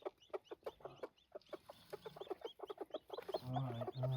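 Broody hens clucking repeatedly. From about two seconds in, chicks peep high and fast, roughly four a second. A louder, lower drawn-out call comes near the end.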